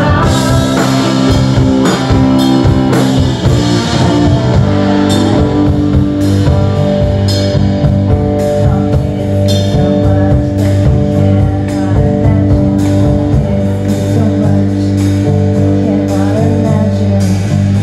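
Live rock band playing: electric guitar, electric bass and drum kit, with a woman singing into a microphone. Long held notes run through the second half.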